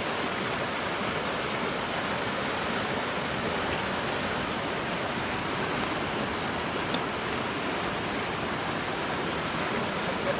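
Creek water rushing steadily over rocks, a constant even wash, with one short click about seven seconds in.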